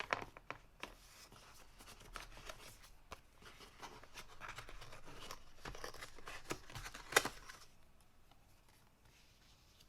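Packaging being handled: paper and plastic rustling and crinkling with scattered sharp clicks and taps, dying away about three-quarters of the way through.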